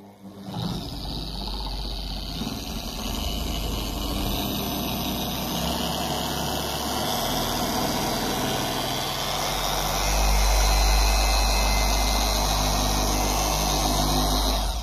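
ChemicalWorkz DA9 Pro Max dual-action polisher, a 1000 W machine with a 9 mm orbit, running with a pad on car paint. Its speed is fed up in steps with the progressive trigger, from a gentle start to the top of speed setting 1. It gets louder about ten seconds in and stops at the very end.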